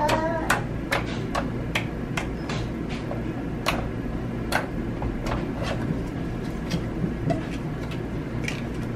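Slime being poked and squeezed by hand, making irregular sharp clicks and small pops as air pockets burst, over steady low background noise.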